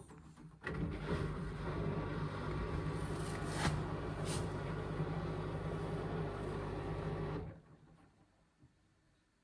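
Indesit washing machine's motor turning the drum through a rinse tumble, starting under a second in, running steadily with a low hum and some sloshing, then stopping abruptly about seven and a half seconds in.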